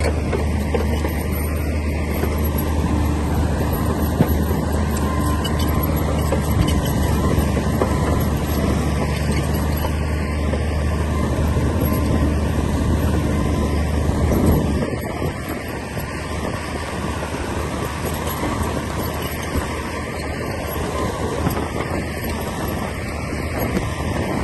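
Diesel engine of a Komatsu D60P crawler bulldozer running steadily under work; about fifteen seconds in its low hum drops and the sound eases off a little.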